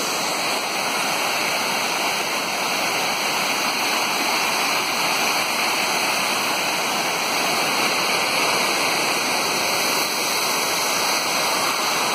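A waterfall pouring steadily, an even, unbroken rush of falling water.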